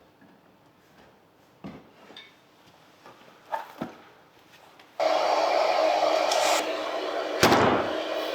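A few light knocks on wood, then about five seconds in a power tool starts abruptly and runs with a steady, loud noise and a hum. A sharp knock comes near the end.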